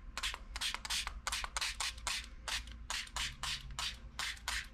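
Hand spray bottle pumped rapidly, a quick string of short hissing squirts about four or five a second, misting diluted white ink over paper.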